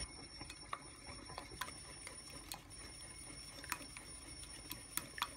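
Faint, scattered clinks of a wire whisk and a metal spoon against a ceramic mixing bowl while egg batter is mixed.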